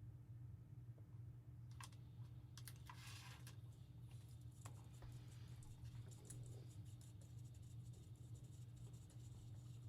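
Faint scattered light clicks and scraping of small tools and parts being handled during disassembly of a telescope mount, starting about two seconds in, over a steady low hum.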